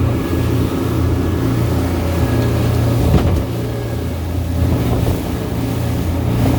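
A boat's engine running steadily at a constant pitch, heard from on board, with a single knock about three seconds in.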